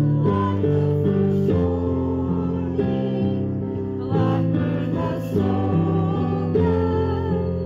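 A congregation singing a hymn to instrumental accompaniment, in steady sustained notes that change pitch every second or so.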